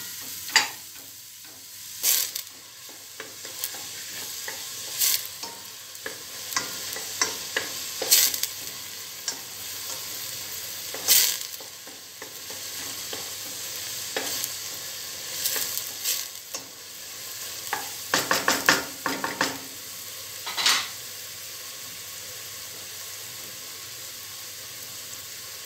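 Chopped onions sizzling as they fry in oil and butter in a deep stainless-steel pot, with a spoon stirring them and now and then knocking and scraping against the pot, in a quick run of clicks around two-thirds of the way in. The stirring stops near the end, leaving only the steady sizzle.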